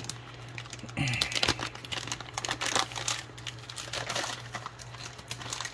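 Clear plastic packaging bags crinkling in quick, irregular rustles as they are handled and opened, starting about a second in.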